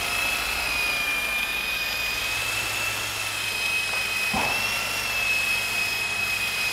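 Art-Tech 400-class coaxial electric RC helicopter hovering in place: a steady high whine from its electric motors and gearing, slightly wavering in pitch, over the low whir of its two counter-rotating rotors.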